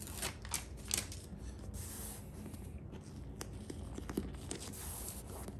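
Soft rustling and rubbing as self-adhesive leather repair tape and its paper backing are handled and pressed down by hand onto a chair armrest, with a few light clicks.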